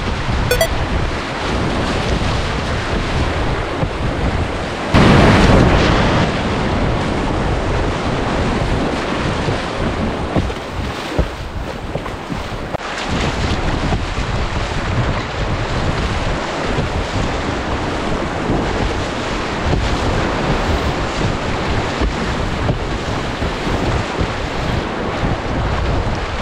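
Whitewater rapids rushing and splashing around a kayak as it is paddled downstream, with wind buffeting the microphone. There is a louder surge of splashing about five seconds in.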